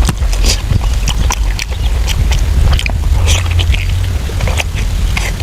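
Close-up chewing and wet smacking of soft braised pork intestines: an irregular run of short, sharp mouth clicks and smacks over a steady low rumble.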